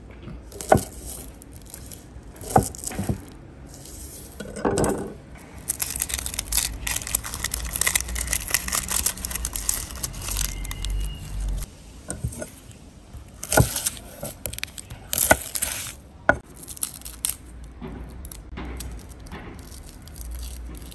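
A chef's knife knocking sharply a few times on a wooden cutting board, then the dry papery skins of a shallot crackling and tearing as they are peeled off by hand for several seconds, followed by a few more sharp knocks.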